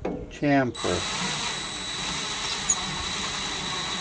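Power drill spinning a step drill bit against the edge of a wheel stud hole in a rear hub flange, cutting a small chamfer; it starts just under a second in and runs steadily with a constant high whine.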